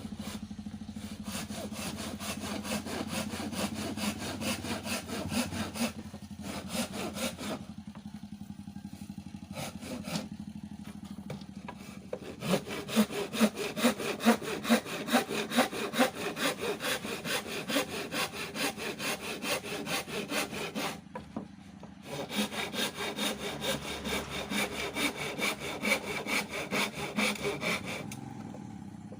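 Hand crosscut saw cutting through old hardwood in quick back-and-forth strokes, with a couple of short pauses. The strokes grow louder about halfway through.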